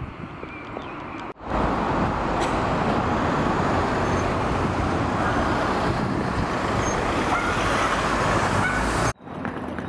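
Busy city street traffic: vans and cars passing close, a steady dense rush of engine and tyre noise. It starts abruptly about a second and a half in, after quieter outdoor ambience, and cuts off abruptly near the end.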